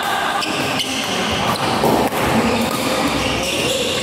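Badminton rally: rackets striking the shuttlecock several times in quick exchanges, with players' footsteps on the court.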